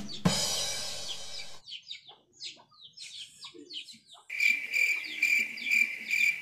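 Small birds chirping repeatedly in short high notes. There is a brief noisy rush about a second long near the start, and from about two-thirds of the way in a steady, pulsing high-pitched buzz typical of an insect.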